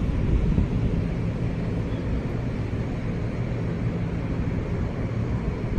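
NJ Transit multilevel passenger coaches rolling past at close range as the train comes into the station, a steady low rumble of steel wheels on the rails with a faint hum.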